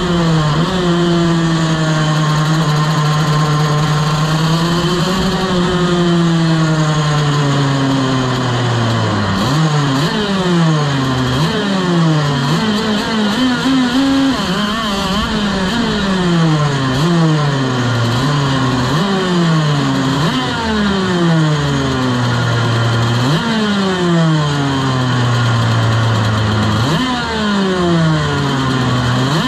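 TM KZ-R1 125 cc two-stroke shifter kart engine, heard onboard. It runs at a steady pitch for the first several seconds, then revs up and drops back over and over, with a longer falling stretch and sharp revs again near the end.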